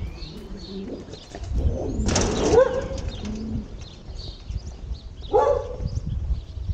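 Birds calling: small birds chirping faintly throughout, with two louder pitched calls, one about two seconds in and one a little past five seconds, over a low rumble.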